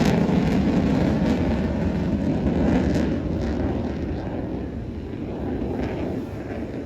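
An aircraft flying past, a loud engine rush that is strongest at first and slowly fades.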